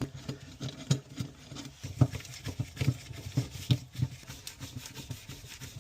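A string of irregular knocks, taps and light clatter, several a second, with uneven loudness.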